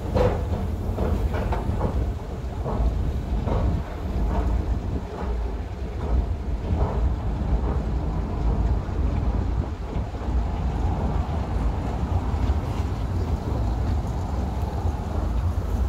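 A steady low rumble of wind buffeting the phone's microphone, mixed with the running of an escalator, with scattered knocks in the first half.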